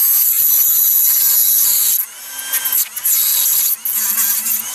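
Dremel rotary tool cutting through carbon fibre, a loud high-pitched whine. It runs steadily at first, then comes in shorter spurts after about two seconds.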